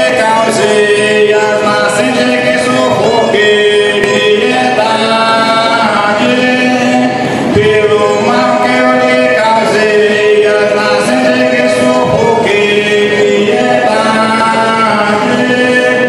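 A man singing a traditional veredeiro hymn that asks forgiveness of Mother Earth, in long held notes, with a fiddle.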